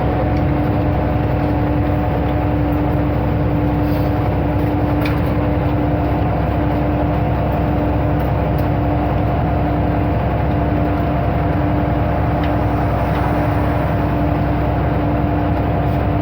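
Ikarus 260 bus under way, its diesel engine running at a steady, unchanging pitch with a constant whine over the drone.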